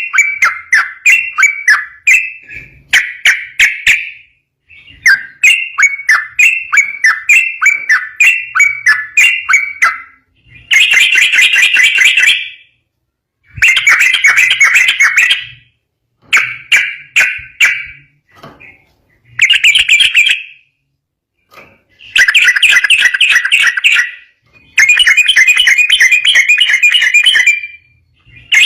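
Yellow-vented bulbul (trucukan) singing loudly: a quick series of repeated bubbling notes for the first third, then dense chattering song phrases of one to three seconds each with short pauses between them.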